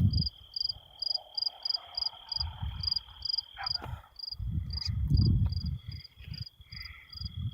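Crickets chirping in short evenly spaced pulses, about three a second, over a steady high insect trill. Dull low bumps and rumbles come and go, loudest around the middle.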